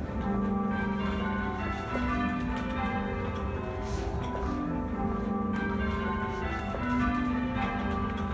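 Church tower bells rung full-circle by a band pulling on ropes (English change ringing): an even, unbroken succession of bell strikes, each bell's ringing tone running on into the next.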